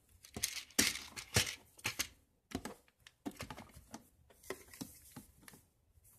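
Medicine boxes and bottles being handled and moved about on a shelf: an irregular run of rustles, clicks and light knocks of cardboard and plastic packaging.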